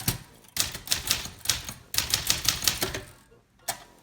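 Signature 440T, a Brother JP1 portable manual typewriter, being typed on: quick runs of key strikes, about five or six a second, with a brief pause near the end.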